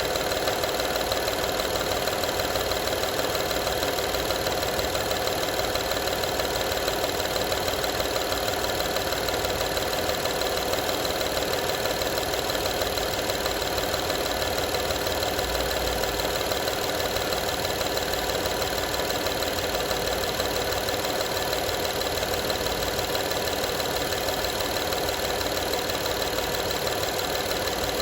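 2012 Honda Odyssey's 3.5-litre V6 running steadily with a rattle whose cause the owner is trying to find.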